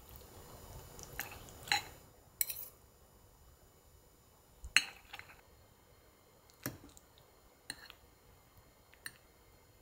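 About seven sharp, light clinks scattered a second or two apart, the loudest about five seconds in.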